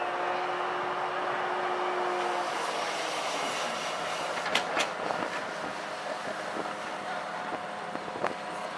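Aircraft carrier steam catapult during a test: a steady rush of steam with sharp metallic clanks, two close together about halfway through and a few more later. A steady whine dies away in the first couple of seconds.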